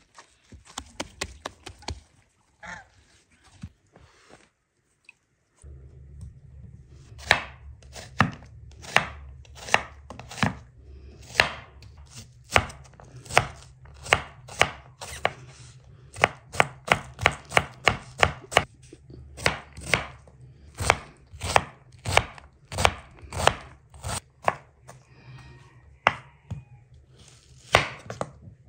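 Kitchen knife dicing an onion on a wooden cutting board: a long run of sharp, evenly spaced chops, a little over two a second, that starts a few seconds in. A steady low hum runs beneath the chopping.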